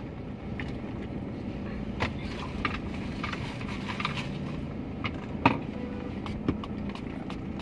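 Steady in-cabin hum of a car, with a few small clicks and knocks of handling inside the car. The loudest click comes about five and a half seconds in.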